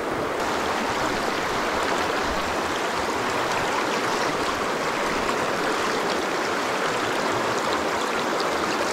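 Shallow creek water running over a rocky riffle: a steady, even rush of flowing water.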